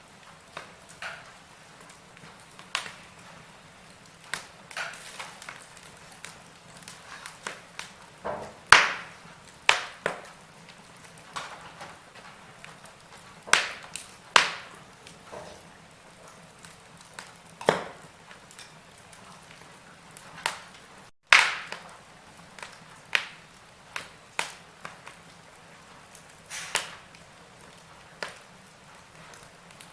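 Wood fire in a fireplace crackling: irregular sharp pops and snaps over a soft hiss, with loud pops about nine seconds in and just after twenty-one seconds. A faint steady low tone runs underneath.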